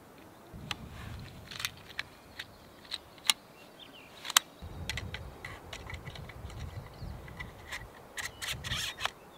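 Small metallic clicks and snaps from handling a Kral Puncher air rifle: pellets pushed into its rotary magazine, then the action and side lever being worked. The clicks are sharp and irregular, the loudest two coming a little past three seconds and at about four and a half seconds.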